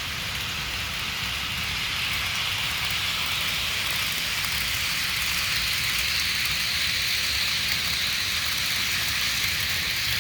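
HO-scale model train running on the track: a steady hissy rolling noise with a low rumble underneath, growing slightly louder about two seconds in.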